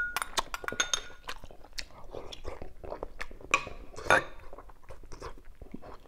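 Close chewing and mouth sounds of a man eating a mouthful of soft pork-stuffed cucumber soup, with a metal spoon clinking and ringing against a ceramic bowl near the start. A couple of sharper spoon knocks come around three and a half and four seconds in as the spoon scoops from a glass dish.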